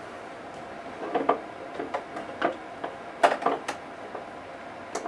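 Scattered clicks and knocks from handling and unlatching an ultrasound probe's connector on a GE Vivid i portable ultrasound machine during a probe hot swap, with a cluster a little past the middle and a final sharp click near the end.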